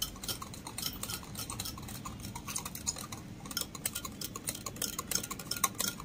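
Wire whisk beating a sugar, oil and milk mixture in a glass mug, its wires clinking quickly and repeatedly against the glass as the sugar is whisked until it dissolves.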